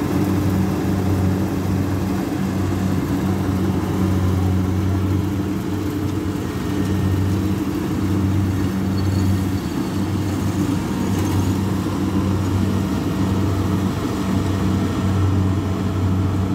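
Kubota DC60 combine harvester's diesel engine and threshing machinery running steadily under load as it harvests rice: a constant low drone.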